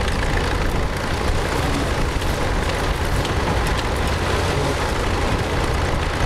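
Tractor engine running steadily while ploughing, heard with a constant, dense rumbling noise.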